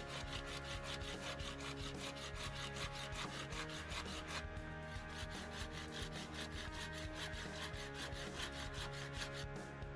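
A long blade scraping along a wooden stick in quick, regular strokes, about six a second, pausing briefly about four seconds in. Background music plays underneath.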